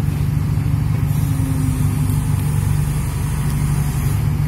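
Backhoe loader's diesel engine running steadily, a loud, even low drone, while its bucket is pressed against a stuck, loaded lorry.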